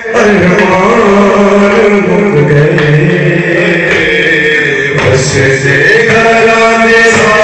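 Men's voices chanting a noha, a Shia mourning lament, sung in long drawn-out notes.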